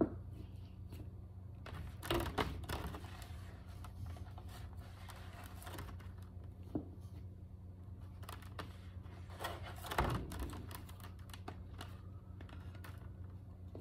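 Hands picking at and pulling the fluffy fur off a Fluffie Stuffiez plush toy: scattered small clicks and scratchy rustles, louder about two seconds in and again about ten seconds in, over a steady low hum.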